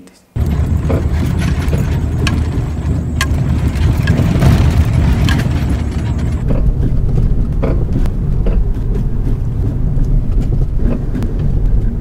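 Car driving over rough ground: a loud, steady low rumble with scattered knocks and clunks from the rear coil-spring suspension. The clip is presented as that suspension working on its springs alone, without shock absorbers.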